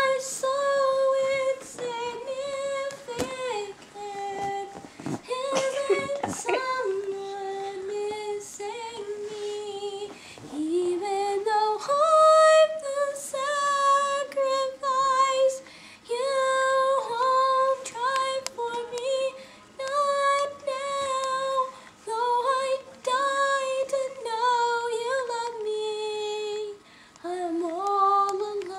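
A girl singing a song unaccompanied in a high voice, phrase after phrase with short pauses for breath.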